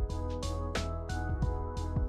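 Background music with a steady beat: sustained melodic notes over evenly spaced drum hits.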